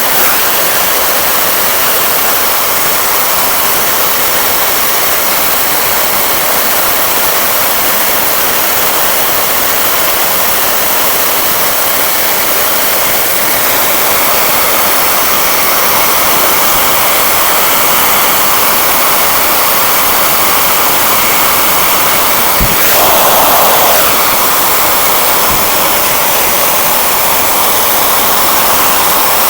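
Hair dryer running on its hot, high setting, a loud steady rush of blown air. A click about three-quarters of the way through, followed by a brief swell where the air sound gets louder for about a second.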